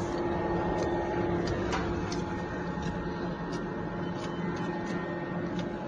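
Automatic wonton-wrapper machine running: a steady mechanical hum with light clicks every fraction of a second.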